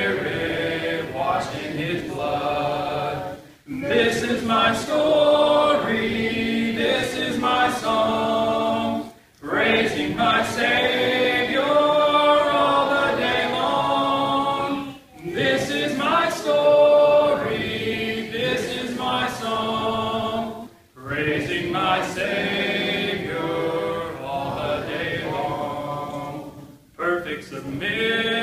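A church congregation singing a hymn a cappella, many voices without instruments, led by a song leader at the microphone. The singing comes in phrases of about six seconds, with short breath pauses between them.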